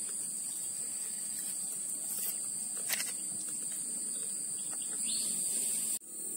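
Steady high-pitched drone of insects, with a single click about three seconds in and a brief dropout near the end.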